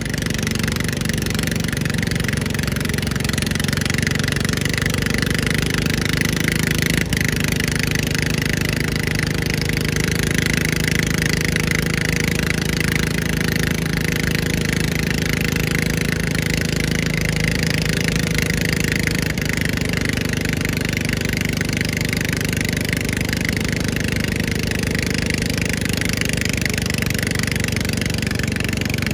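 Pulling lawn mower's small engine running steadily at an even speed, with one faint click about seven seconds in.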